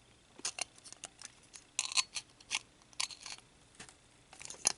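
A screwdriver pressing metal battery terminals into the slots of a plastic remote-control front panel: a string of irregular small clicks and scrapes, a few of them sharper.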